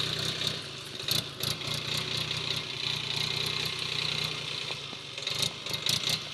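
Powertrac tractor's diesel engine running steadily at low revs as it pulls a water tanker slowly along a dirt track.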